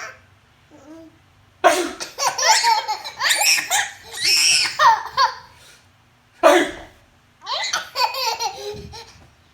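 A person sneezes twice, about a second and a half in and again past the middle, and each sneeze is followed by a baby laughing hard in repeated bouts.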